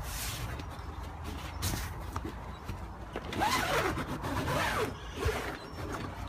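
Zip on the canvas of a camper van's pop-top roof being pulled, with the fabric rustling; the zipping is loudest from about three to five seconds in.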